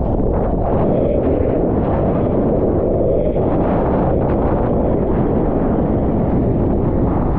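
Loud, steady wind buffeting a POV camera's microphone, heard as a continuous low rush with no pitch to it.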